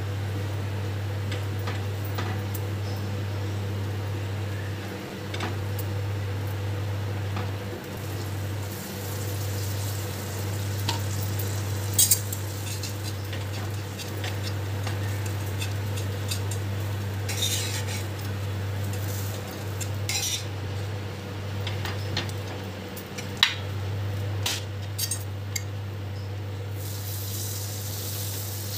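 Butter sizzling on a hot iron tava as pav buns toast, with a metal spatula clinking and scraping against the pan several times, the sharpest knocks about twelve seconds in and near twenty-three seconds. A steady low hum runs underneath, and the sizzle grows louder near the end.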